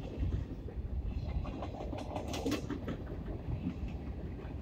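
Freight train of covered hopper cars rolling past at close range: a steady rumble and clatter of steel wheels on the rails, with a short cluster of sharp, high clicks about halfway through.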